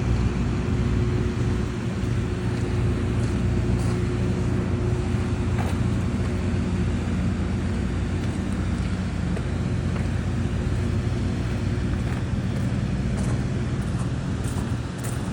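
Rain falling over the steady low hum of a running vehicle engine, with scattered faint ticks.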